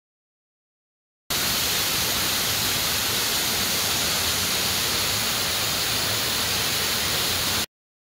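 Todtnau waterfall rushing: a steady hiss of falling water that cuts in suddenly about a second in and cuts off suddenly near the end.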